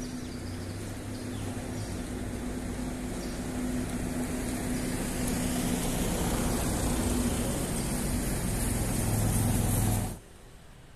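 Street traffic: a steady engine hum over road noise, growing louder, then cut off suddenly about ten seconds in, leaving quiet room tone.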